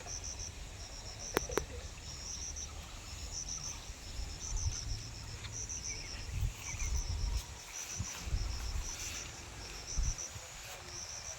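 Crickets chirping in short repeated pulses, over a low rumble that rises and falls, with two sharp clicks about a second and a half in.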